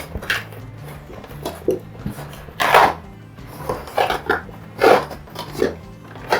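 Background music, with irregular knocks and rustles of flat-pack cabinet parts and cardboard packaging being handled, about one a second.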